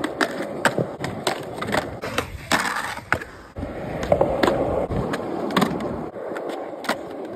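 Skateboard wheels rolling over concrete, with frequent sharp clacks of the board as tricks are popped and landed.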